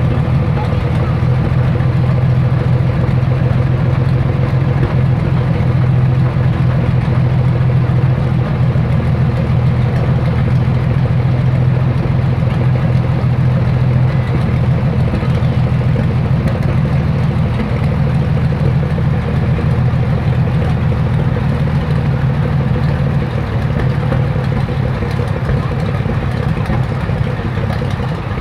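1936 Buffalo fire engine running steadily under load, driving its 1000 gpm fire pump. The engine note eases off slightly about three-quarters of the way through.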